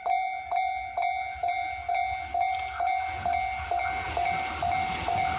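Railway level crossing warning bell ringing in a steady clang about twice a second. A train approaching, its rumble rising from about halfway through.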